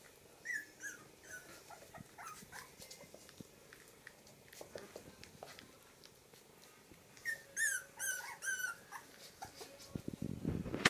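Four-week-old mini labradoodle puppies squeaking and whimpering in short, high-pitched cries that fall in pitch. There are a few near the start and a quick run of them a little past the middle, with light clicks and a low rustle near the end.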